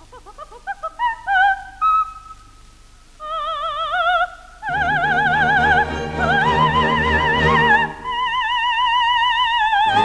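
Coloratura soprano singing an opera aria with orchestra in a 1948 recording. She starts with a run of short, detached high notes with almost nothing under her, then holds long high notes with a wide vibrato as the orchestra comes back in underneath, about halfway through.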